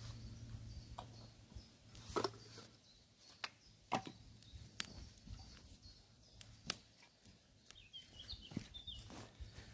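Faint, scattered clicks and light knocks, about six over several seconds, with a short high bird chirp about eight seconds in.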